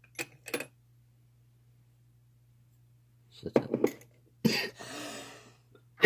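Small metal padlock parts clicking and clinking as they are handled on a workbench. There are two light clicks near the start, a cluster of clicks a little past the middle, then a longer clatter that fades.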